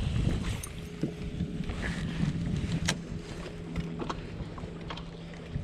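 Wind rumbling on the microphone over a steady low electric hum from a bow-mounted trolling motor, which stops near the end. A few faint clicks sound through it.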